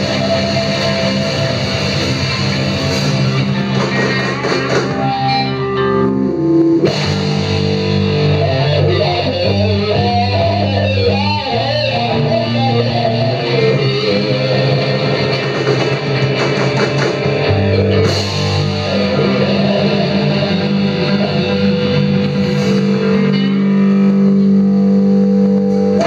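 Live rock band playing: electric guitar over bass guitar and drum kit, loud and continuous.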